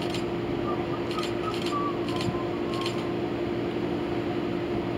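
A steady mechanical drone with one constant hum, and a few short, faint whistles and chirps over it.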